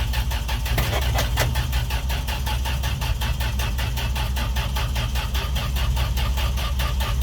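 Dodge D100 pickup's engine cranking over on the starter with an even, rapid chug and not catching, despite fuel squirted down the carburetor throat.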